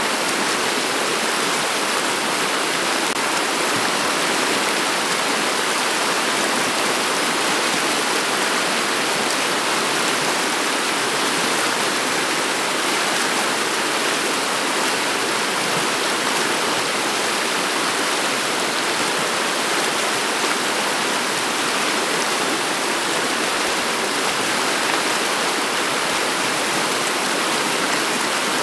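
Shallow river water flowing over a stony bed: a steady, even rush of running water.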